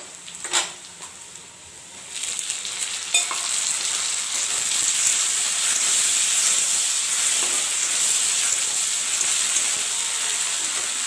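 Chopped tomatoes frying in hot oil with browned onions: a few knocks of a utensil on the pan, then a loud sizzle that swells about two seconds in and holds steady.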